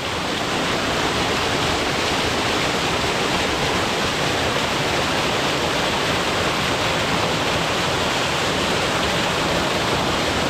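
Waterfall: water pouring down steadily in a loud, even rush.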